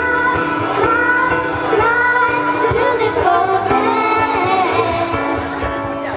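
Ukulele group playing a song with voices singing the melody.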